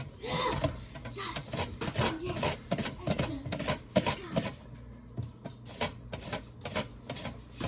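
Peppers being sliced with a very sharp kitchen slicing tool: a quick, uneven run of slicing strokes, several a second.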